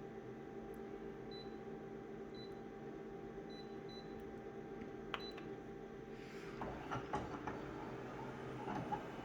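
Steady hum of a running machine with faint, short high beeps about a second apart, then a click and several seconds of irregular clicking and rattling toward the end.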